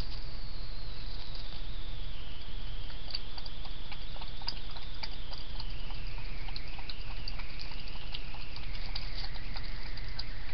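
Hedgehog foraging on gravel close to the microphone: small irregular clicks and crackles, several a second. Under them run the trail camera's steady hiss and a faint electronic whine that slowly falls in pitch.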